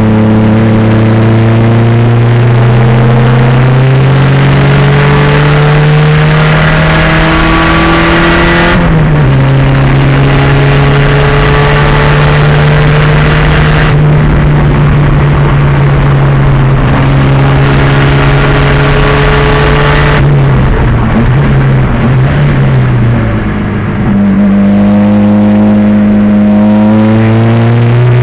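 1987 Pontiac Fiero race car's 2.0-litre turbocharged engine running hard on track. The pitch climbs slowly and drops sharply at a gear change about nine seconds in, then holds fairly steady. It wavers and eases off briefly a little past twenty seconds, then climbs again near the end.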